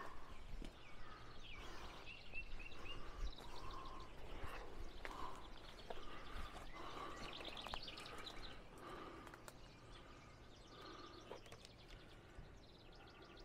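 Faint birdsong: several birds chirping and trilling on and off, with a few light clicks and rustles.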